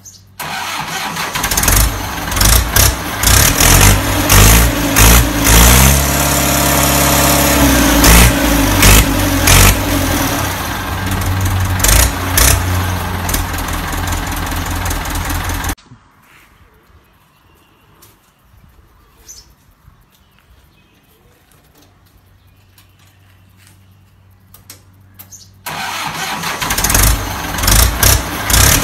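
Ford 6610 tractor's four-cylinder diesel engine starting about half a second in and running with repeated revs, the pitch sweeping up and down. It cuts off suddenly about halfway through, and after some ten seconds of quiet it starts again near the end and is revved.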